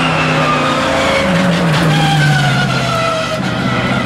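Race car engine running hard, its pitch dipping and wobbling about a second and a half in, then holding lower, with tyres squealing.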